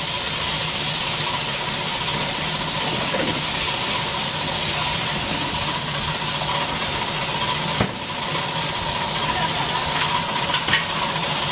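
Gas-fired griddle with batter cooking on it, giving a steady hiss over a low hum; one sharp knock about eight seconds in.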